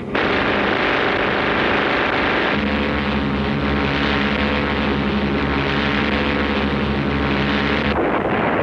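Steady drone of the AC-130 Spectre gunship's four Allison T56 turboprop engines and propellers, a stack of even tones over a rushing noise. About two and a half seconds in, the drone turns deeper and fuller. Near the end it gives way to a rougher rushing noise.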